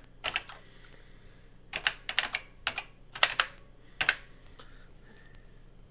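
Keys clicking on a Tandy Color Computer 3 keyboard as a load command is typed, in short runs of keystrokes, the last one about four seconds in.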